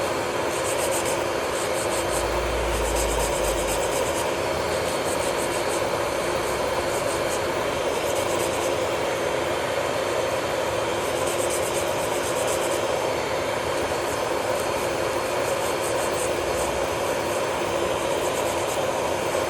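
Electric nail drill running at a steady speed with a constant motor hum, its bit grinding against the nail now and then with a fine scratchy sound.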